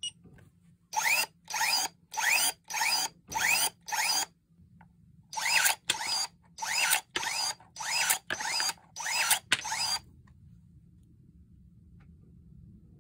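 Cordless electric pruning shears cutting through a wooden dowel again and again, the motor giving a short rising whine with each blade stroke. There are thirteen strokes in two quick runs, and the tool stops about ten seconds in.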